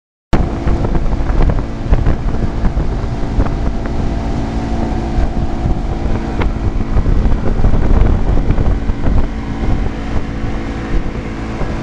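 Motorboat engine running steadily at towing speed, with heavy wind buffeting on the microphone and the rush of the wake.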